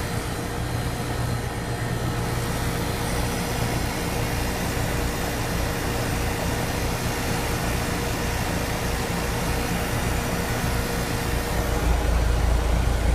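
Ruud 2.5-ton air-conditioning condenser unit running steadily with a constant hum, freshly recharged after its leaking coil was repaired. The low rumble grows louder near the end.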